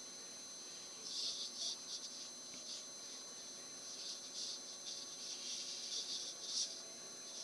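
Fingers scratching a cat's fur under the chin and around the head: a series of short, faint rustling scratches in two spells, about a second in and again from about four seconds in.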